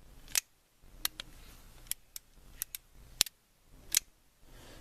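A series of sharp metallic clicks and taps, about nine, spaced irregularly, from handling a freshly reassembled cap-and-ball revolver.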